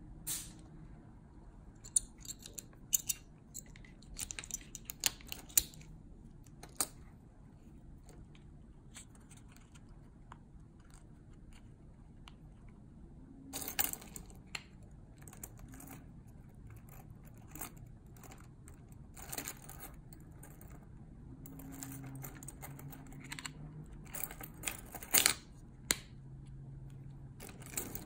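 A 2015 Jeep Cherokee key fob's plastic shell and parts being handled and pressed together, giving scattered sharp clicks and taps. There is a cluster of louder snaps about halfway through, and the loudest near the end. Keys on the attached ring clink lightly.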